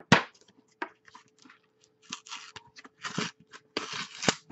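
A sealed tear-open trading card's paper casing being ripped open by hand: a quick rustle at the start, then several short crackly tears, the longest near the end.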